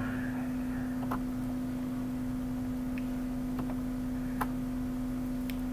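A steady low hum on the recording, with about five faint computer-mouse clicks scattered through it.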